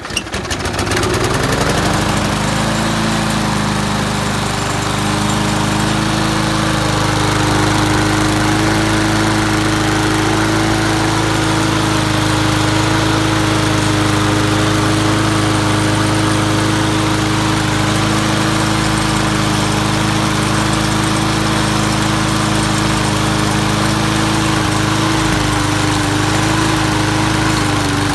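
Briggs & Stratton four-stroke single-cylinder lawn mower engine coming up to speed over about two seconds after starting, then running steadily; right at the end its pitch starts to drop as it is shut down.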